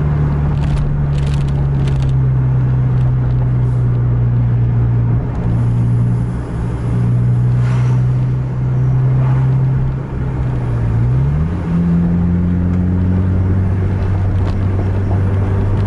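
Car engine and tyre noise heard from inside the moving car. The engine tone holds steady, then rises in pitch about eleven seconds in and settles again.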